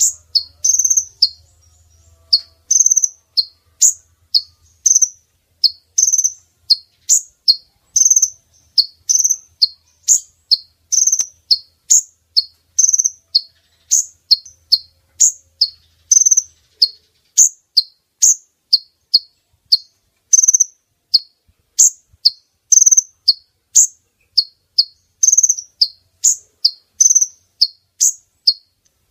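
Female olive-backed sunbird (kolibri ninja) calling: short, high chirps repeated evenly, about two to three a second. This is a lure call used to attract males.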